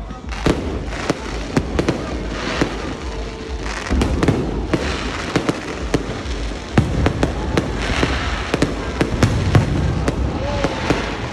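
Aerial fireworks display going off in rapid succession: a steady run of sharp bangs mixed with longer crackling bursts.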